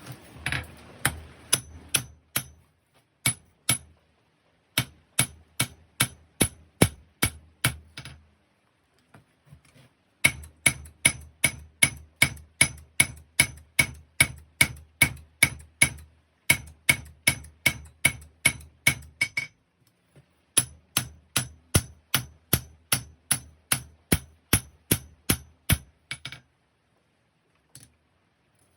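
Hammer blows on hot 5160 steel over an anvil while forging a knife blade, about three ringing strikes a second in runs with short pauses between them.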